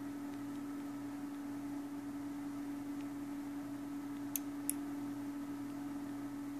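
Steady low electrical hum, with two small sharp clicks about a third of a second apart a little past the middle.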